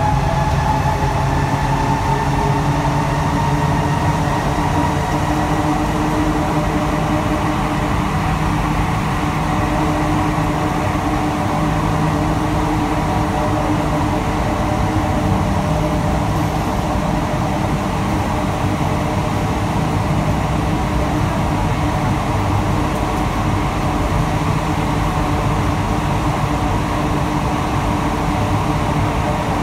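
Inside a rubber-tyred Alstom NS-16 metro car under way: a steady rolling din with the whine of the traction motors. The whine rises in pitch over the first few seconds as the train picks up speed, then holds steady.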